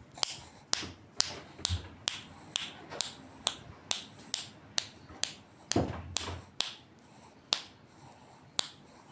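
A series of sharp clicks, about two a second, spacing out near the end.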